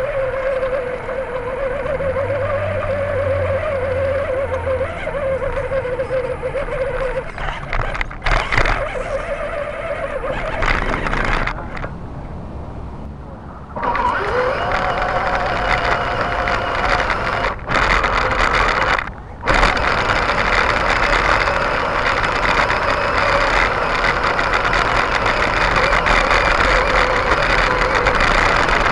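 Electric RC truck's motor and gears whining under load as it pulls a weighted sled, heard from a camera mounted on the truck. The whine is steady at first. After a break about halfway through it comes back louder and rougher, with a short rising whine as the motor spins up.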